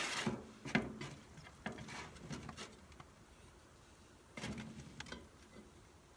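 Food being served onto a plate: scattered clicks and scrapes of a utensil with brief rustles, loudest at the start and again about four and a half seconds in.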